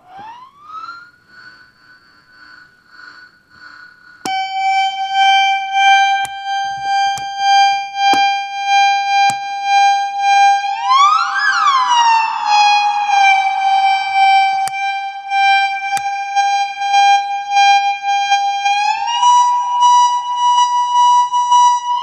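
Noisekick FX Unreachable Void noise-machine pedal putting out a shrill, siren-like electronic tone with a pulsing volume. It starts faint and jumps much louder about four seconds in. The pitch glides up and back down about halfway through as a knob is turned, then steps up near the end, with a few sharp clicks along the way.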